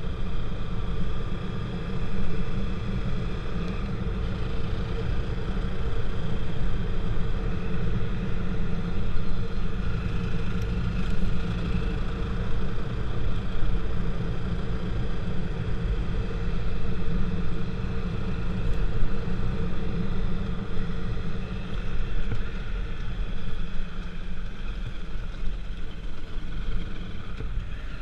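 A vehicle's engine running steadily on the move, heard from on board: a constant heavy low rumble with a faint steady whine above it.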